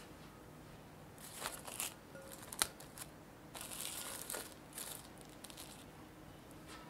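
Plastic cling film crinkling in irregular bursts as it is pulled out and stretched over a glass mixing bowl, with one sharp click about two and a half seconds in.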